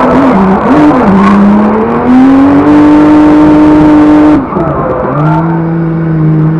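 Turbocharged BMW E30 race car's engine, heard from inside the cabin, revving up and down in quick throttle blips, then held at high revs for about two seconds before dropping off sharply about four and a half seconds in and running steadier at lower revs.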